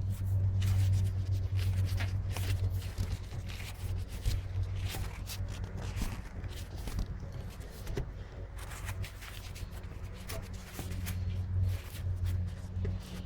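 Wrench and fittings clinking and scraping irregularly as a hydraulic hose fitting on a John Deere 260 backhoe's valve manifold is worked loose, over a steady low hum.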